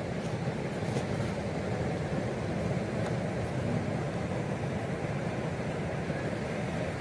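Steady low rumble of breaking surf and wind.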